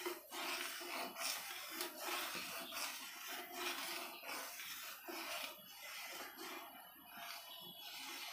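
Metal spatula scraping and stirring around a steel pan of boiling milk, in irregular strokes roughly every half second. The milk, lightly curdled with vinegar, is being stirred constantly so it neither sticks to the bottom nor forms a skin while it reduces.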